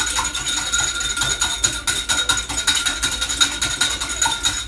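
Two wire whisks beating egg in bowls, a fast, continuous clatter of the tines against the bowl sides.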